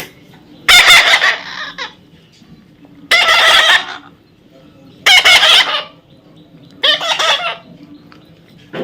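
A parrot giving four loud, harsh squawks, about two seconds apart.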